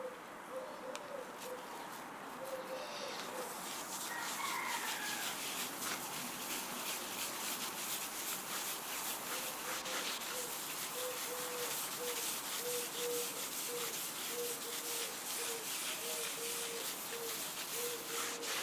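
A gloved hand rubbing oil finish into an olive wood burl and epoxy resin tabletop with a cloth: a steady scrubbing hiss that starts about three seconds in. A bird calls in short, evenly repeated low notes alongside, most steadily in the second half.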